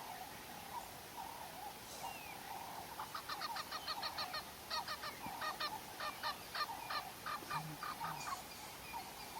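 A bird giving a fast run of repeated calls, several a second, starting about three seconds in and stopping about four seconds later, over a faint steady background of calling.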